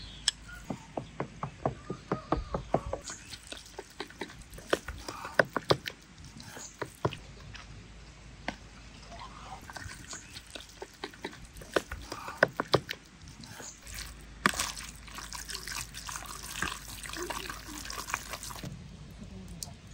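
A metal spoon clicks and scrapes against a plastic bowl while stirring diced raw chicken with tomato paste, spices and oil, with a quick run of clicks in the first few seconds. Wet squishing of the coated meat, denser near the end.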